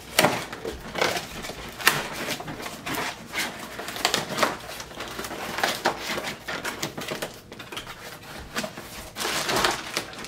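Crinkling and rustling of plastic-bagged parts and cardboard packaging being handled, with irregular crackles and small knocks.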